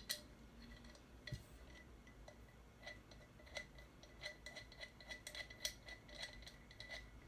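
Faint, irregular light clicks and taps of hard parts being handled and fitted together, some with a brief slight ring.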